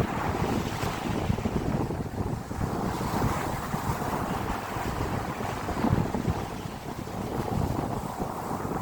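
Wind buffeting the microphone outdoors: a continuous rumbling noise that rises and falls in gusts.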